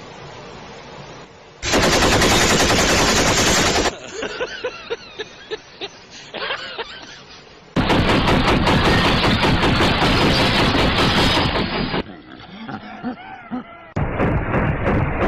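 Loud bursts of rapid machine-gun fire, three times: about two seconds long, then about four seconds, then starting again near the end. Voices can be heard in the gaps between bursts.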